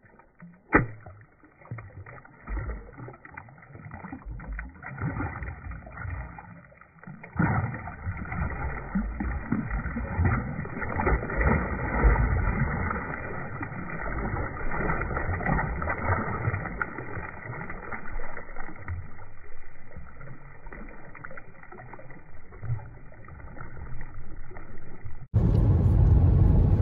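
Muffled water splashing and sloshing as a largemouth bass is released into shallow lake water and kicks away, with a sharp knock about a second in. Near the end it cuts to steady road noise inside a moving car.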